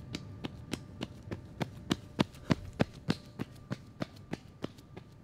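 Running footsteps on a concrete sidewalk, about three steps a second, growing louder toward the middle and then fading away, over a faint steady hum.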